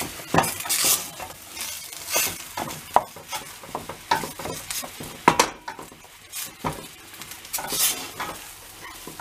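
Wooden spoon stirring and pressing thick fried potato mash in a stainless steel pot, with irregular scrapes and knocks against the pot, the loudest about five seconds in. Sizzling from the pan sits underneath.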